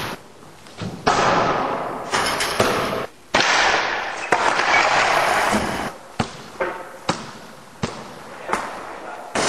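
A series of sharp bangs and clatters, about a dozen, each echoing on for a second or so in a large hard-walled indoor skatepark. These are impacts from skateboarding and basketball play.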